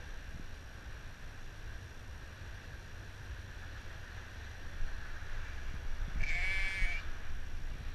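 A sheep bleats once, a single quavering call of under a second, about six seconds in.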